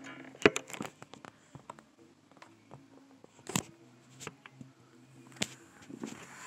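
Scattered light clicks and knocks, with sharper ones about half a second in, a little past the middle and near the end, over a faint steady hum.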